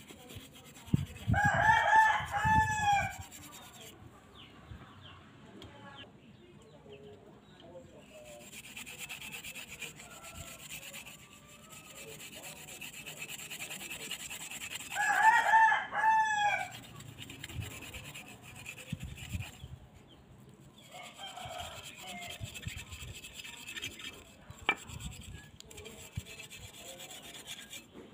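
A rooster crows twice, once about a second in and again about halfway through, each a drawn-out call over about two seconds, the loudest sound here. Between the crows, a hand wire brush scrubs rust from a cast-metal motorcycle pedal with a dry, scratchy rasp.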